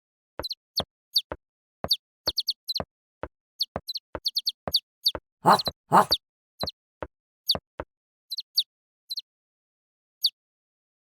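Baby bird chirping: many short, high, downward-sliding peeps in quick irregular runs, the sound effect of a crying fledgling fallen from its nest. Two louder, noisier sounds come about five and a half and six seconds in, and the peeps thin out near the end.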